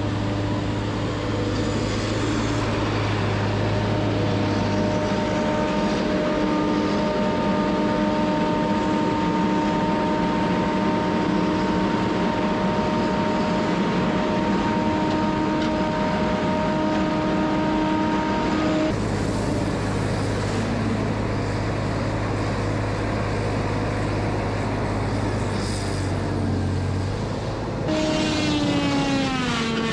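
Tracked feller buncher running, its diesel engine and hydraulics giving a steady drone with whining tones as it moves and swings its felling head up to a tree. Near the end a whine drops steeply in pitch.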